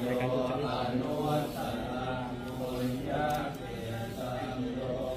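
Buddhist monks chanting Pali verses together in unison, a continuous recitation in long held tones.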